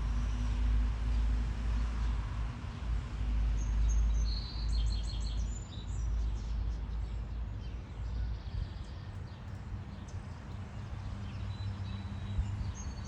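Small birds chirping in short, high notes, in a cluster a few seconds in and again near the end, over a steady low rumble.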